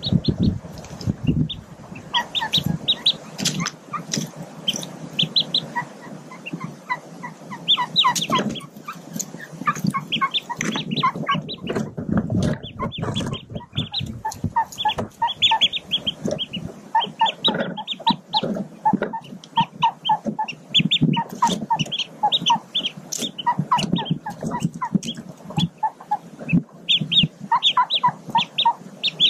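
Newly hatched mallard ducklings peeping, with many short high chirps in quick runs, mixed with a mallard hen's low, soft clucking calls.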